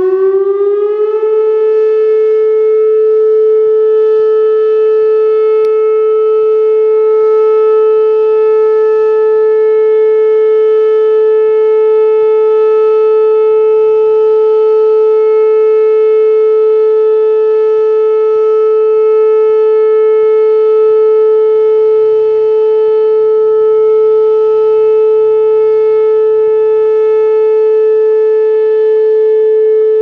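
Whelen WPS 2810 electronic outdoor warning siren sounding a steady tone in a full test: the pitch slides up during the first second, then holds one loud, unwavering note with strong overtones, the siren working correctly.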